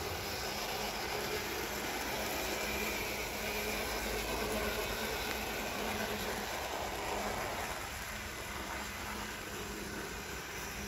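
Model English Electric Type 4 diesel locomotive running along garden railway track, its twin can motors whirring with a steady low hum over the sound of the wheels on the rails.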